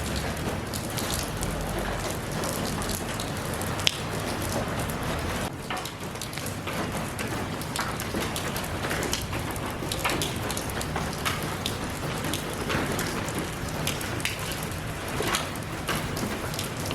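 Steady rain falling, with many individual drops ticking on a hard surface close by. One sharper drop tick stands out about four seconds in.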